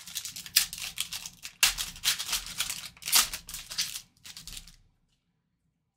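Foil wrapper of a 2023 Panini Rookies & Stars football card pack being torn open and crinkled by hand, in a run of sharp crackles that stops about five seconds in.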